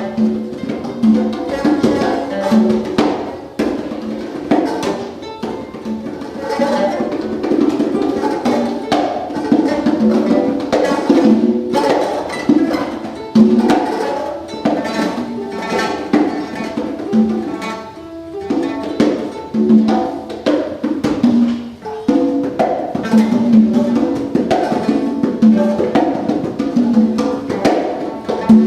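Free-improvised live music: hand-played conga drums with a plucked string instrument, a dense stream of short struck hits and picked notes.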